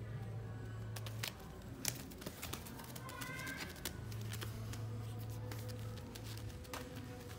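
Baby macaque moving about on a woven mat: a run of light taps and clicks, with a short high call about three seconds in.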